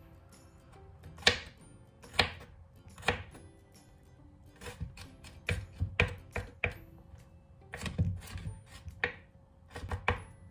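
Kitchen knife mincing garlic on a wooden chopping board: sharp knocks of the blade on the board, spaced about a second apart at first, then in quicker runs.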